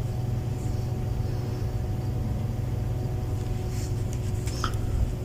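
Steady low mechanical hum with a few faint steady tones above it, and some light clicks and a short chirp in the second half.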